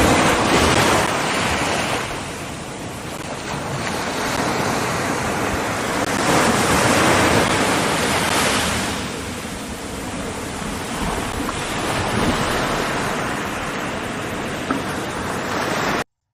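Surf washing on a shore with wind on the microphone, a steady rushing that swells and eases every few seconds and cuts off abruptly near the end.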